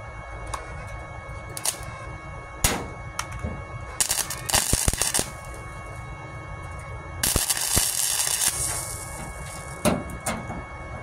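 Flux-core wire welder spot-welding a thin sheet-metal patch: two crackling, sputtering arc bursts about a second long each, around four and seven seconds in, with single sharp pops before and after as the arc strikes briefly.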